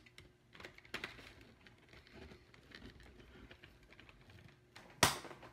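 Scissors snipping and clicking at the ties holding a toy in its cardboard box, with light scattered ticks and rustles. A sharp snap about five seconds in, the loudest sound, is a tie being cut through.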